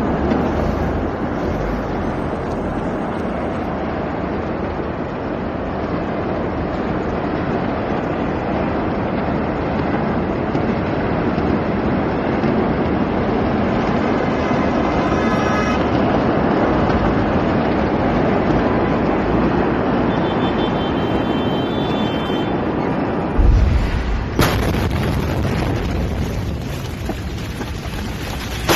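Steady rushing noise, then about 23 seconds in a heavy low boom as the blast of the 2020 Beirut port ammonium nitrate explosion reaches the camera. About a second later comes a sharp crack, followed by a dense rush of noise.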